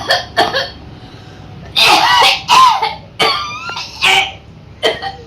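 A person coughing and clearing the throat over and over on purpose, with no real cough behind it: a string of short, sharp forced coughs, with a louder cluster of strained, voiced coughs about two seconds in.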